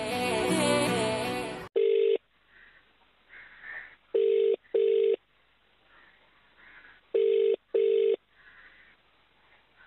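A short musical sting, then a phone ringback tone heard over the line. The tone is low and narrow-band: one beep, then two ring-ring double beeps about three seconds apart, the double-ring pattern used on Indian phone networks. The call is still ringing, not yet answered.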